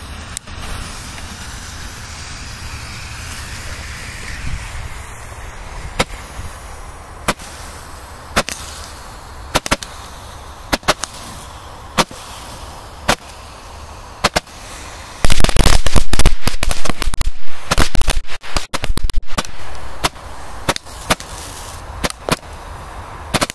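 Roman candles firing: after a few seconds of hiss, sharp single shots come about once a second. A little past halfway a loud, dense string of bangs lasts about five seconds, then single shots resume.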